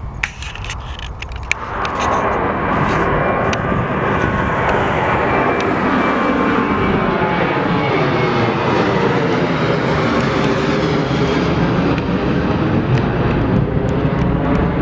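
Airplane engine noise that swells sharply about two seconds in, then holds loud and steady with a layered, slowly shifting tone.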